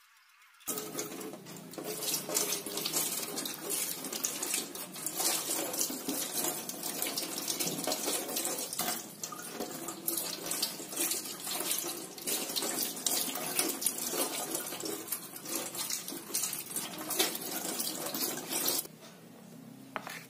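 Tap water running into a stainless steel sink as a plastic cutting board is rinsed under it, the splashing changing as the board is moved. The water starts about a second in and is shut off abruptly near the end.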